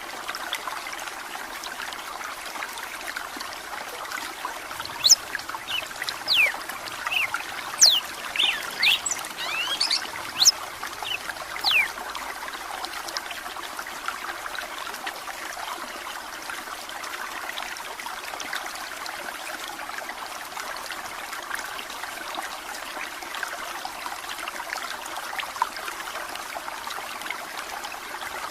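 Running water trickling steadily, with a burst of red-cowled cardinal song from about five to twelve seconds in: a quick run of loud whistled notes sweeping up and down.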